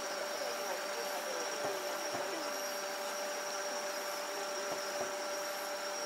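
Distant aerial fireworks shells bursting, heard as a few faint thuds over a steady high-pitched drone.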